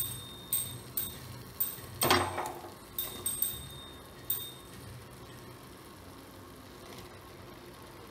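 Steel spoon clinking against an aluminium pressure cooker: a string of sharp, ringing taps over the first four seconds or so, with one louder clatter about two seconds in.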